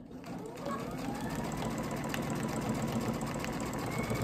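Sewing machine with a walking foot quilting through three layers of fabric and batting, the needle stitching at a fast, even rate. It starts suddenly, its motor whine rises over the first second or so, and then it runs steadily.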